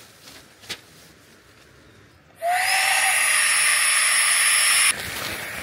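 FLEXTAILGEAR battery mini air pump switched on at the valve of a Naturehike inflatable sleeping mat, a steady loud whirring hiss as it blows air in; it starts suddenly about two seconds in, its pitch rising a little as the motor spins up, and drops quieter about a second before the end. Before it, faint rustling of the mat fabric.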